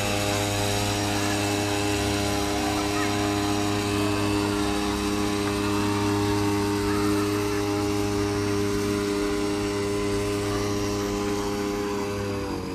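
Outboard motor on a fishing boat running steadily at a constant speed during a test run. Its pitch and loudness dip slightly near the end, as the throttle eases off.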